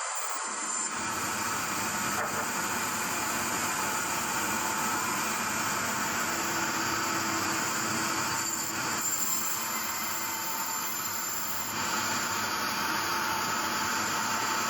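Sawmill machinery running with a steady, dense mechanical noise, the kind made by a saw working through timber.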